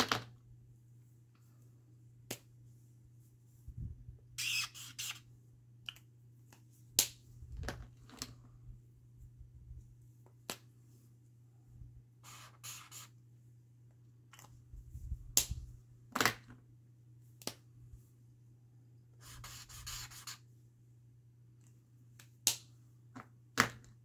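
Handling noise on a craft table: a dozen or so sharp clicks and taps as small blocks of polymer clay are picked up and set down, with three short spells of rustling, over a steady low hum.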